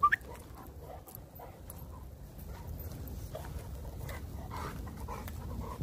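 A dog gives one short, high whine that rises in pitch right at the start, the loudest sound here. Soft scattered steps on the trail follow, over a low rumble on the microphone.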